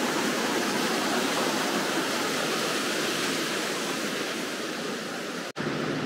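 Steady rush of a waterfall and mountain stream, an even hiss of falling water. Near the end it cuts off abruptly and a duller rushing noise takes over.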